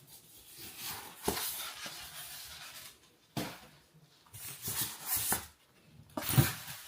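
Styrofoam packing being lifted out of a cardboard box: several spells of rustling and scraping, a sharp click about a second in and a louder knock near the end.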